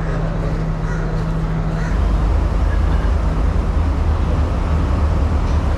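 Sri Lankan diesel passenger train rumbling alongside the platform: a steady engine hum, then about two seconds in a louder, deeper drone takes over.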